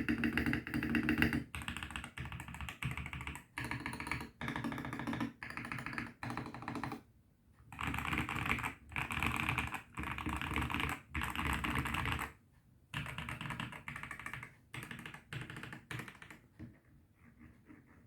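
Typing on a Koodo Solar 75% mechanical keyboard fitted with lubed Ajazz Huano Banana switches, Durock plate-mount stabilizers and PE and EVA foam: fast runs of keystrokes in bursts of about a second with short pauses between, softer near the end.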